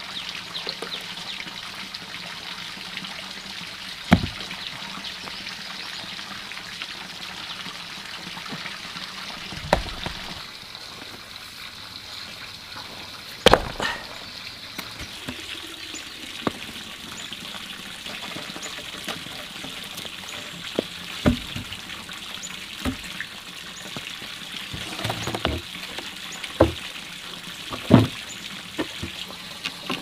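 Water running and pouring steadily, with a few scattered knocks and clatters.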